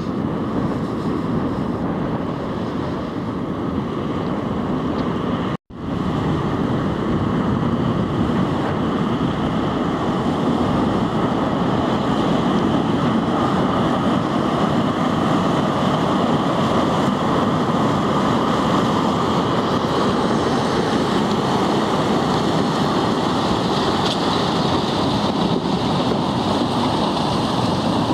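Steady rushing and grinding of drift ice and water along the hull of a loaded inland tanker barge breaking its way through ice floes. The sound cuts out for a split second about five and a half seconds in.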